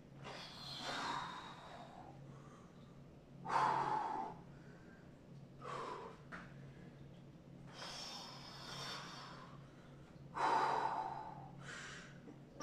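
A man breathing hard from exertion, with six forceful exhalations spaced about two seconds apart; two of them are louder and carry a little voice. A steady low hum runs underneath.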